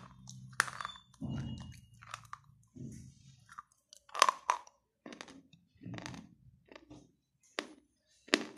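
Wet slate pencils being bitten and chewed close to the microphone: several sharp crunches with softer gritty chewing in between.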